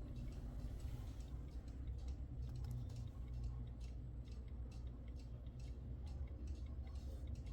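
1890 Junghans B32 alarm clock ticking with a fast, even beat, over a low steady hum.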